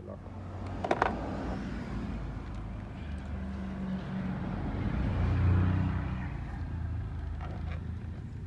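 A motor vehicle engine running with a low hum that grows louder to a peak about five and a half seconds in and then eases off, with a couple of sharp clicks about a second in.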